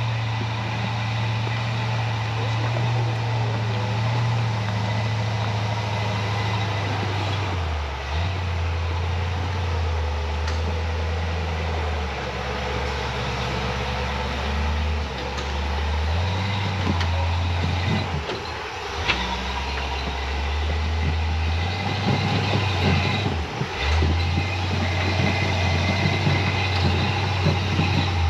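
Off-road vehicle's engine running at low revs, its pitch stepping up and down repeatedly as the throttle is worked. A few sharp knocks are heard partway through.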